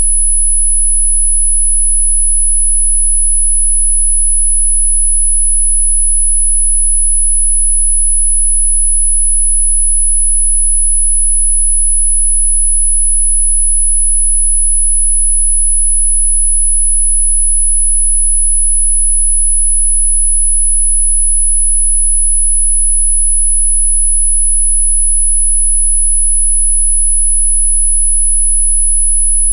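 A single electronically generated pure sine tone, very high-pitched and held perfectly steady in pitch and loudness.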